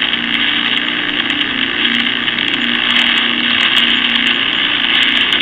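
Spirit box app sweeping: a steady harsh static hiss with a low, rapidly fluttering buzz beneath it.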